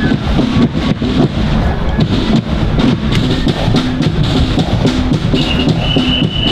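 Marching flute band playing: bass and snare drums beating a steady rhythm, with high flute notes coming in near the end.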